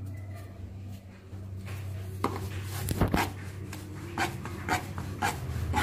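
Rolling pin rolling out a flour-dusted dough round on a wooden board: a run of rubbing strokes, about two a second, starting about two seconds in, over a steady low hum.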